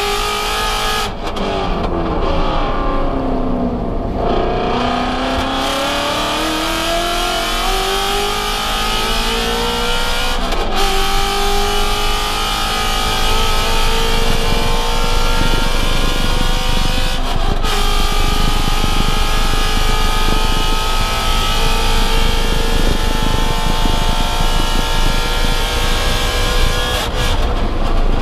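Ford Mustang Shelby GT350's 5.2-litre flat-plane-crank V8 at full throttle, heard from inside the cabin. It eases off briefly at first, then climbs steadily in pitch through the gears, with quick upshifts about a third and two-thirds of the way in. The throttle lifts just before the end for braking.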